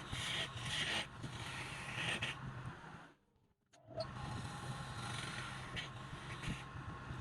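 Wood lathe motor humming steadily, with bursts of scraping as a turning tool cuts the spinning wood. The sound cuts out for about half a second a little after three seconds in, then the hum and cutting resume.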